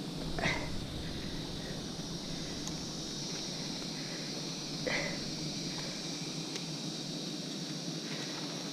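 Steady, high-pitched insect drone, with two brief sharp sounds, one about half a second in and one about five seconds in.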